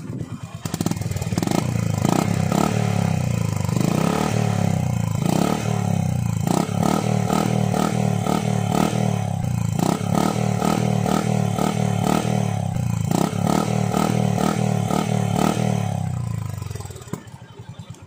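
Honda H'ness CB350's air-cooled single-cylinder engine running, heard at its single chrome silencer. The exhaust note comes in about a second in and dies away near the end.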